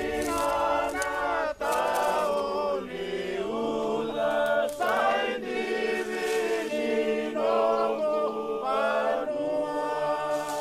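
An unaccompanied group of voices singing a chant together in harmony, with long held notes that change pitch in step.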